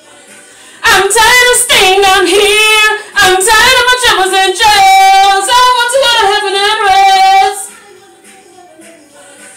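A woman singing a slow gospel song unaccompanied, with long held, wavering notes. She stops about two seconds before the end.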